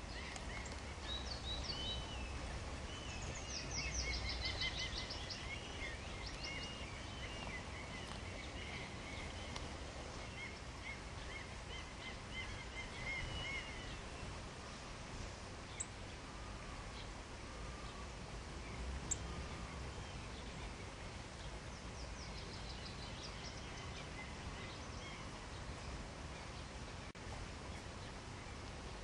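Small birds singing outdoors: repeated high chirps and quick trills, busiest in the first half and again briefly near the end, over a steady outdoor background hiss.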